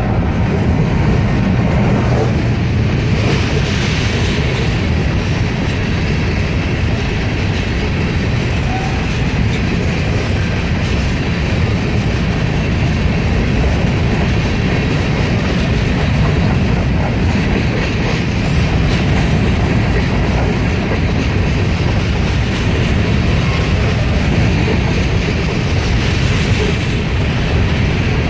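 Empty grain train rolling steadily past on the rails, its wheels clattering along the track.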